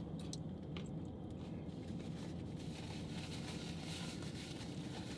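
Steady low hum in a car cabin, with a few faint clicks and rustles of food wrappers being handled in the first second.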